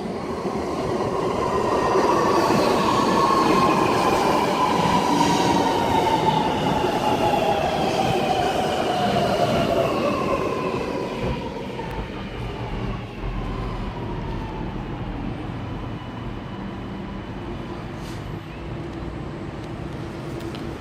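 Alstom Metropolis driverless metro train arriving at the platform and braking to a stop. Its electric traction whine falls steadily in pitch as it slows and fades out about halfway through, leaving a steady lower hum from the standing train.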